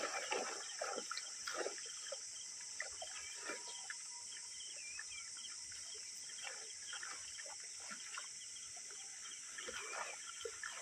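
Freshly caught fish thrashing in a full cast net, making small irregular splashes and flaps. A steady high insect chorus and a few bird chirps run behind.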